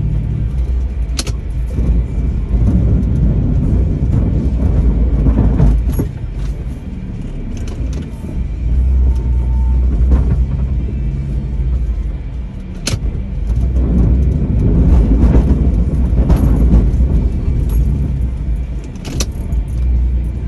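A 2002 Jeep Liberty running as it pushes snow with its plow: a steady low engine and drivetrain rumble that swells and eases. Several sharp knocks or clicks come through, and there is some rattling like keys jangling.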